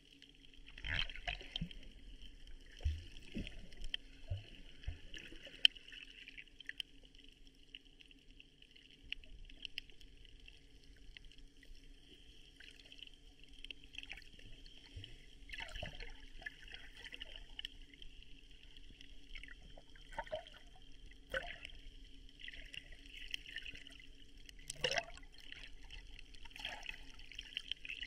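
Water splashing and trickling at low level, with a few brief, sharper splashes.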